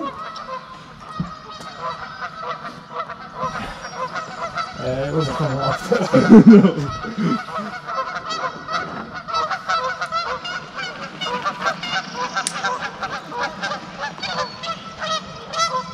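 A flock of geese honking, many short calls overlapping and repeating all through, with a louder, lower sound about six seconds in.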